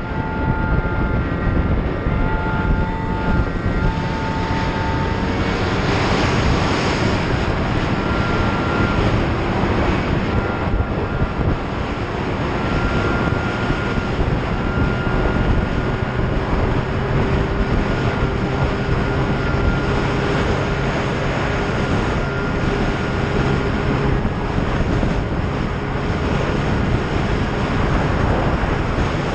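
Snowmobile running steadily at trail speed from the rider's seat: a constant engine drone with a faint whine, mixed with the rushing noise of the track and skis on packed snow.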